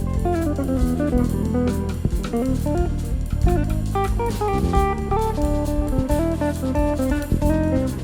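Instrumental jazz band playing live: a quick plucked guitar melody over bass and drum kit.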